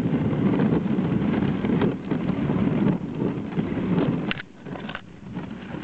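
Clothing rubbing and rustling against the camera's microphone, with wind noise. The rubbing eases off for a moment about four and a half seconds in.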